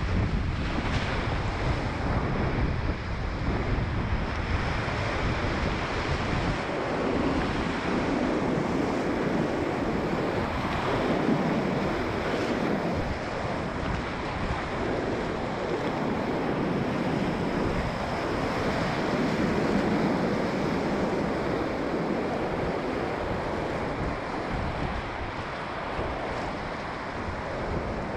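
Whitewater rapids of a river running high, rushing and churning loudly around a kayak.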